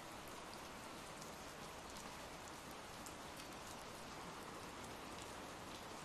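Ambient rain sound effect: a soft, steady hiss of rainfall with faint scattered drop ticks.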